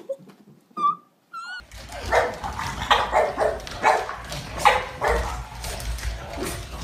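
A dog barking and yipping in a series of short calls, with a low rumble behind.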